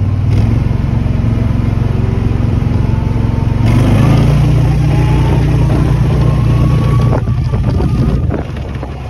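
Gator utility vehicle's engine running under load while towing a rider on a rope, with a faint whine that rises slowly in pitch as it speeds up. The engine sound eases off near the end.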